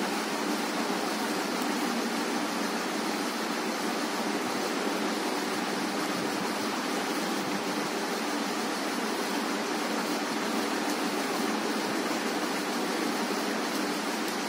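Steady rushing noise at an even level, with no distinct clicks or other events.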